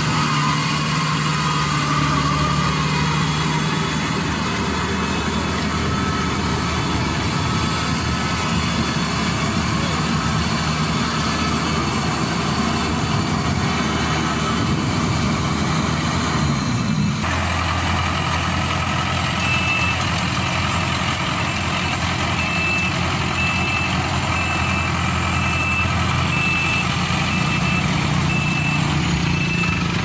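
Crown Sumo rice combine harvester's engine running steadily. From a little past halfway, a reversing alarm beeps in a steady high tone about once a second.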